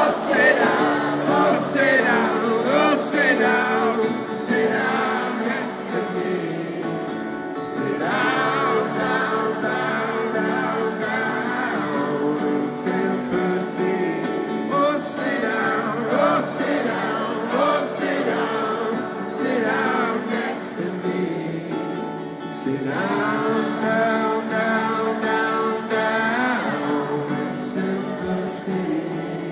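Live acoustic guitar and singing at a stadium concert, with a large crowd singing along, recorded from within the audience.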